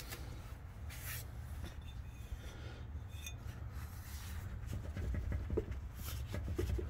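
A gloved hand gripping and rocking suspension parts under a 2001 Honda Civic, checking for play behind a clunk: rubbing and light clicks, with a few short squeaks about five to six and a half seconds in, over a steady low rumble.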